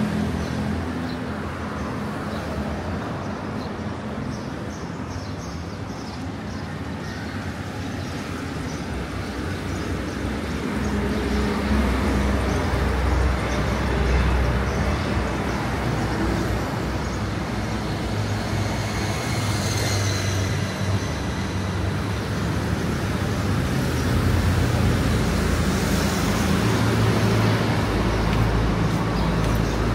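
Steady road traffic noise from vehicles passing on the street alongside. A low rumble swells about a third of the way in and again near the end.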